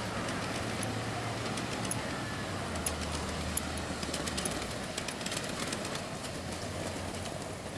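Ride-on miniature railway train running along its track and moving away: a steady low rumble with a run of light ticks in the middle, growing a little fainter near the end.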